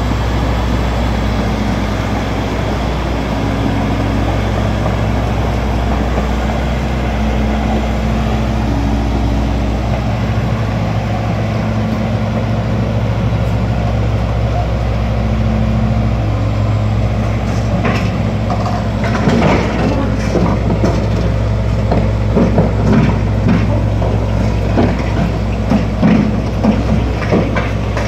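Komatsu D85ESS-2 crawler bulldozer's diesel engine running steadily as the machine crawls on its steel tracks. From about 18 seconds in, irregular clanks and knocks come in as the tracks climb onto the steel trailer deck.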